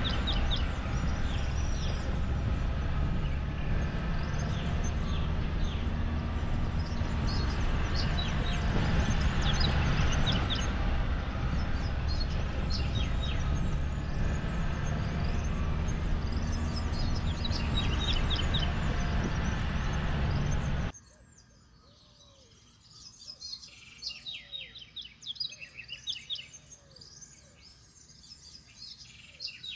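Many birds chirping and calling over a steady low rumble. About two-thirds of the way through the rumble cuts off suddenly, leaving the birdsong clear, with some lower calls that rise and fall, repeated.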